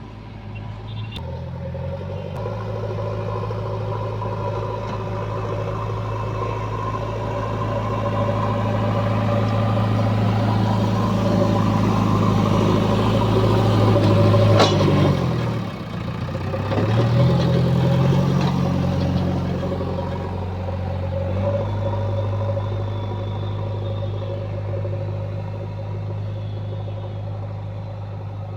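Diesel engine of a JCB 3DX backhoe loader running under working load while it loads mud. The engine revs build steadily, dip and recover about halfway through, with a single sharp clack near the dip.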